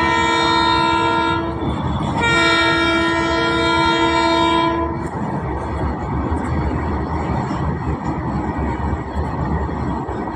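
Indian freight train of open wagons rolling past, with a multi-tone locomotive horn sounding twice: one blast ending about a second and a half in, a second from about two seconds to five seconds in. After that the steady running noise of the wagons on the rails goes on.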